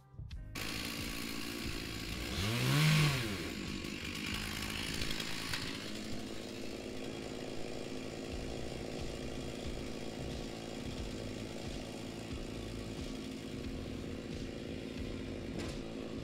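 Stihl MS 461 two-stroke chainsaw running, revving up and back down once about three seconds in, then running steadily.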